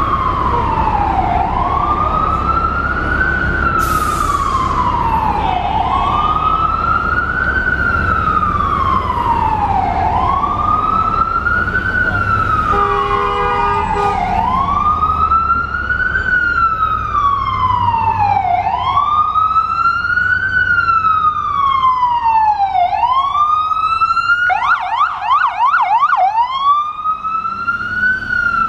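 FDNY emergency vehicle's electronic siren in wail mode, rising and falling about every three seconds and growing louder. It switches to a rapid yelp for about two seconds near the end. A horn sounds briefly about halfway through, over the low rumble of city traffic.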